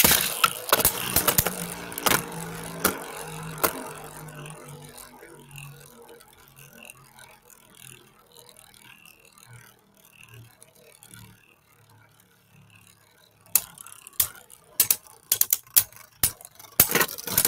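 Beyblade Burst tops, one of them Spriggan Requiem, ripped off their launchers with a loud rattle and then spinning with a steady whir that slowly fades. Near the end there is a quick run of sharp plastic clacks as the tops hit each other hard.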